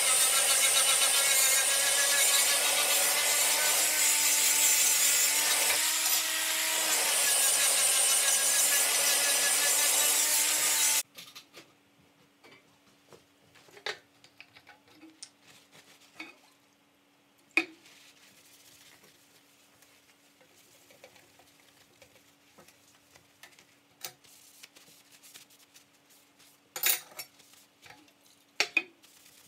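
Handheld angle grinder running steadily against a metal bar, grinding its edge, then switched off and going quiet about eleven seconds in. After that come only faint handling sounds and a few light knocks.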